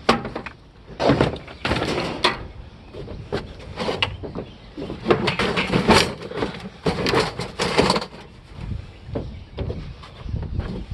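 Irregular knocks, clunks and scrapes of hard objects being handled and moved, some with a short ring.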